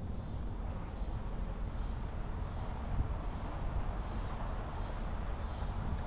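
Steady low rumble of a car driving along a country road: tyre and engine noise.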